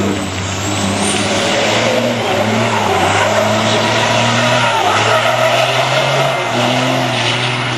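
Sisu race truck's diesel engine held at high revs, its pitch wavering slightly, while it spins donuts with its rear tyres screeching and hissing.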